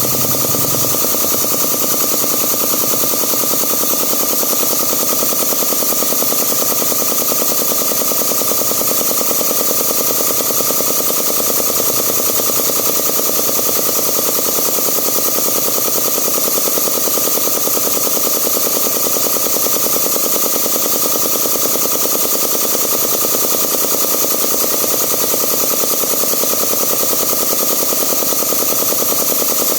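Zacchi air compressor's piston pump running steadily, a fast, even rattle of rapid strokes.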